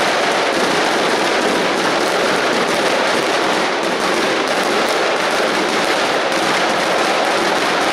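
Firecracker battery (batteria pirotecnica) going off at ground level: hundreds of rapid reports merging into one steady, unbroken crackle.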